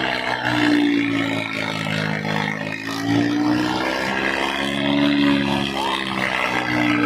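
Tractor diesel engines labouring at high throttle in a tug-of-war pull, their pitch swelling and sagging in a slow, even cycle about every two and a half seconds, over crowd noise.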